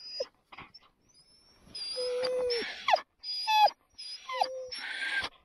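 Alaskan husky sled dogs in harness whining and yelping, a run of about five short, high cries with falling pitch starting about two seconds in: the eager noise of a team held at a stop and wanting to go.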